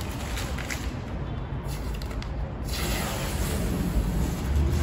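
Blue painter's masking tape being peeled off a car's paint around the headlight: a drawn-out ripping hiss, with a steady low rumble beneath.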